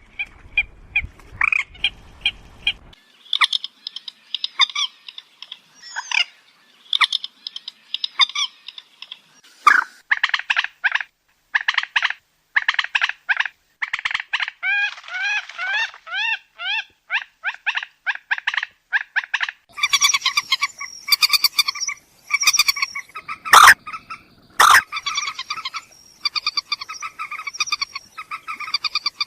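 Common moorhen calling: a long string of short, harsh croaking notes, some delivered in fast runs, with two sharp clicks a little past the middle.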